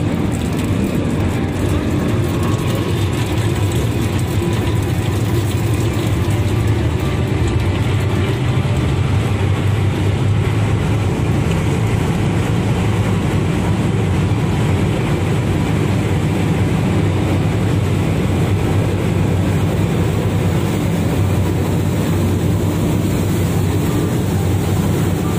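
Fast passenger boat's engines running loud and steady as it pulls away under power, with the rush of its churning wake.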